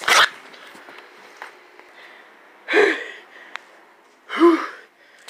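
Two short wordless vocal sounds from a person, about a second and a half apart, after a brief loud noise at the very start.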